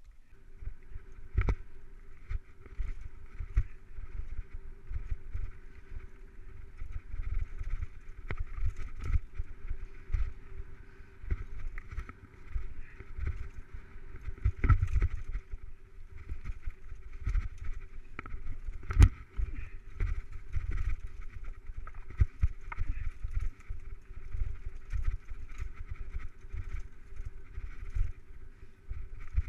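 Mountain bike riding fast over a rough dirt trail, heard from a camera mounted on the bike or rider: a constant low rumble full of knocks and rattles from bumps and roots, over a steady whirr. The hardest knock comes about two-thirds of the way through.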